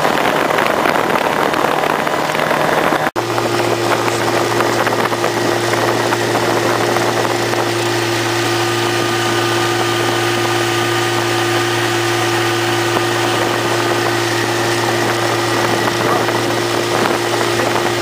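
Tohatsu 35 hp two-stroke outboard motor running steadily at speed, driving the boat through the water with spray and wash. About three seconds in the sound breaks off for an instant and resumes at a steady, even pitch.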